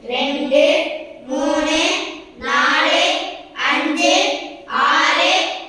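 A group of children chanting aloud in unison, one word about every second in a sing-song rhythm, counting off the numbered angles.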